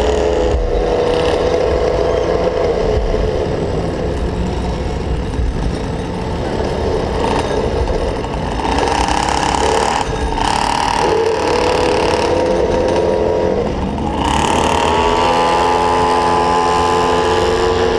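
Small two-stroke engine of a gas-powered Go-Ped stand-up scooter running, its buzz shifting up and down in pitch with the throttle, with a few brief dips. Wind rumble on the microphone underneath.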